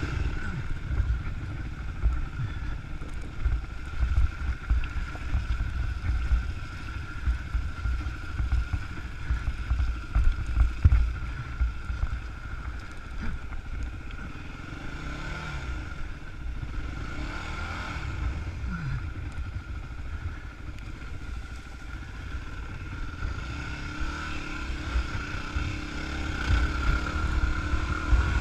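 Dirt bike engine running as the bike rides a rough trail, its pitch rising and falling with the throttle around the middle. Wind and bumps rumble on the helmet-mounted microphone.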